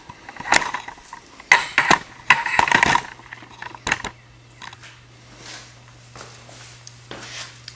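Metal clinks and clatter of hand tools and parts being handled on a metal lathe's headstock: a run of sharp knocks in the first three seconds and one more about four seconds in.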